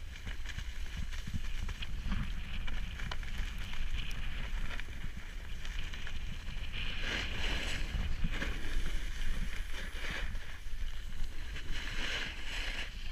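Wind rumbling on the microphone of a camera moving downhill, with the hiss of a snowboard scraping across groomed snow, louder a little past halfway and again near the end.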